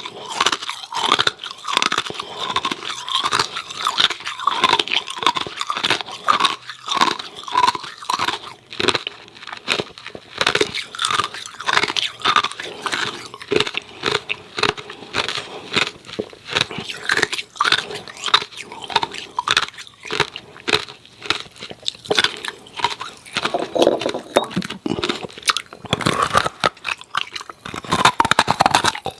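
Hard ice cubes being bitten and chewed close to the microphone: rapid, irregular, extremely crunchy cracking as the ice breaks between the teeth.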